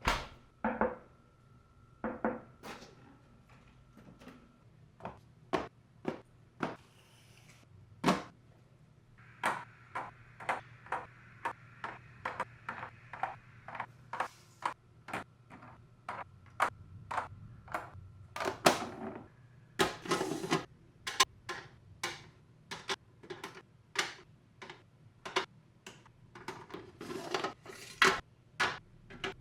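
A string of irregular clicks, knocks and clatters, a few each second, as food items and containers are set down and handled while a refrigerator is stocked.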